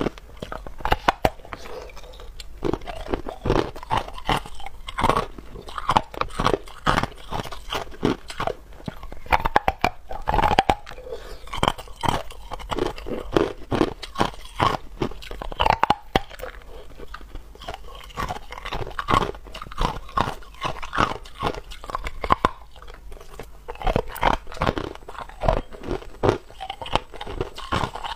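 Hard ice being bitten and chewed close to a clip-on microphone: a dense run of sharp crunches and cracks.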